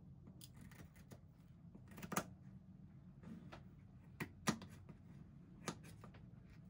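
Kitchen scissors snipping the spiny fins off a lionfish on a wooden cutting board: a handful of sharp, irregular snips and clicks, the loudest about two and four and a half seconds in.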